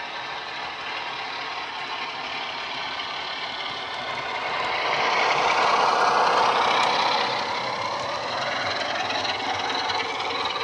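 Sound-fitted model Class 47 diesel locomotive running, its DCC decoder playing a Class 47/4 engine sound (the Sulzer diesel) through the model's own small speakers. It grows louder as the model comes up to and passes close by about six seconds in, then eases as the coaches follow.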